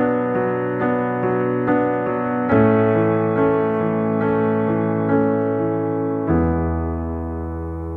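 Piano playing a slow instrumental passage: a note struck about twice a second over sustained chords, changing chord about two and a half seconds in and again near the end, where a low chord is held and slowly fades.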